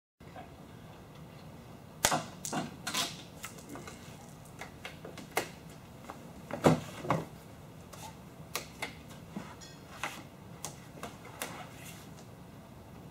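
Irregular light clicks and knocks, a dozen or so spread over about ten seconds, from a sunshade being unhooked from a Jeep Wrangler JL's roll-bar frame: its hooks and bungees coming off the bars.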